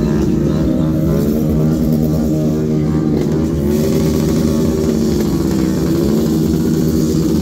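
Motorcycle engines running steadily, with a rev that rises and falls in pitch about six seconds in.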